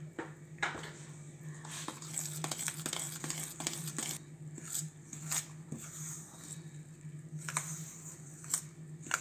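A spoon stirring flour into a soft, buttery dough in a stainless steel bowl: scratchy scraping and rustling with sharp clicks where the spoon knocks against the bowl, over a steady low hum.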